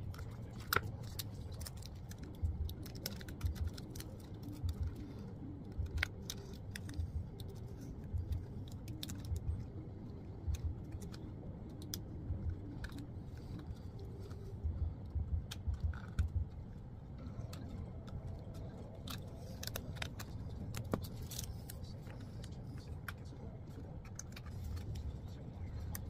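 Hands handling carbon-fibre vinyl wrap film and a plastic car door trim piece: irregular crinkling and small sharp clicks, with soft knocks against the table now and then.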